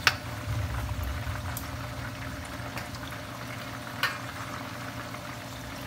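Battered chicken pieces deep-frying in hot oil in pans on a stove: a steady bubbling sizzle. Two sharp clicks cut through it, one just after the start and one about four seconds in.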